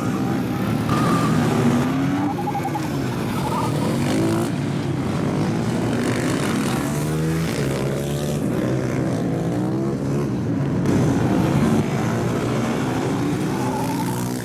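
Supermoto motorcycle engines revving, the pitch climbing and dropping again and again as the bikes accelerate and shift, with more than one engine heard at once.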